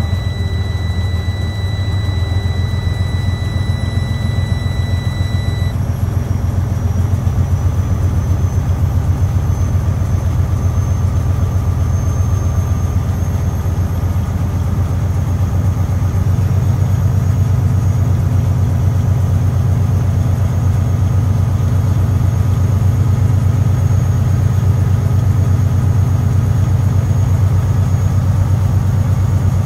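Semi-truck diesel engine running with raised revs, heard from inside the cab, to build air-brake pressure toward 120–125 psi. A high whine climbs slowly in pitch and the engine grows slightly louder about halfway through. A steady high tone stops about six seconds in.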